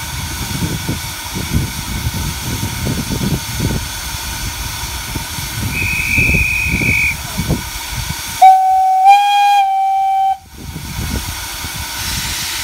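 Quarry Hunslet steam locomotive "George B" blowing its whistle for departure: one steady whistle of about two seconds, the loudest sound, over a low rush of steam. A shorter, higher whistle sounds first, about six seconds in.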